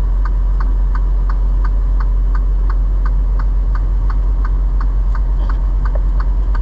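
Truck's hazard flashers ticking evenly about three times a second over the steady low drone of the diesel engine.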